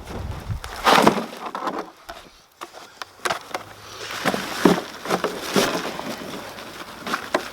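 Hands digging through dry soil in a potato container, with irregular scraping and knocking sounds and a short lull about two seconds in.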